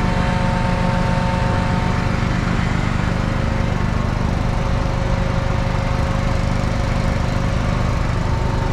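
Farm tractor engine running steadily at a constant speed while it pulls the liquid fertilizer applicator rig, with a faint steady whine above it.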